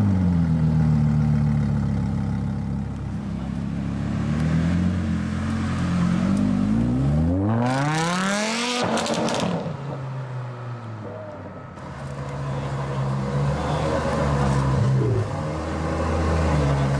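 Lamborghini Huracán V10 idling just after start-up, its pitch settling down in the first second or two. It gives a short blip and then revs up hard in a rising sweep as it pulls away, cut off abruptly near the middle. Later a Ferrari F12tdf V12 idles steadily, with a brief blip of the throttle near the end.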